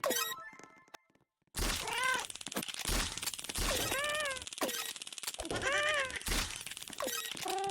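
A cat meowing about four times, each meow rising and falling in pitch, over a steady crackling noise.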